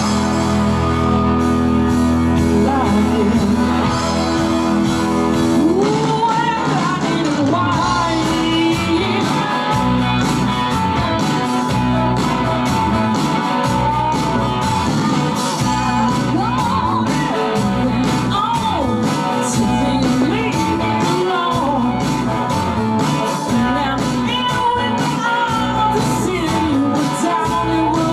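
Live rock band: a woman singing lead over electric guitars, bass and drums.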